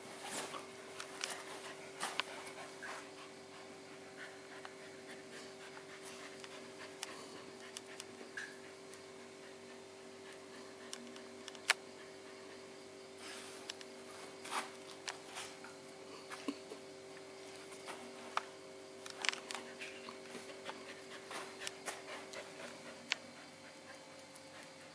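Siberian Husky puppy panting, with scattered light clicks and taps as it moves about on a tile floor, over a steady faint hum.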